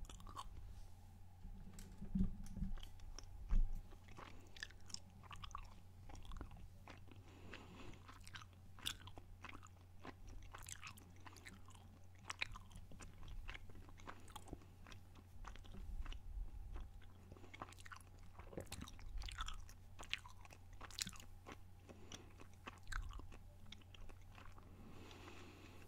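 Close-miked chewing gum: wet mouth clicks and smacks scattered throughout, with a couple of louder low thumps about two and three and a half seconds in. A steady low hum runs underneath.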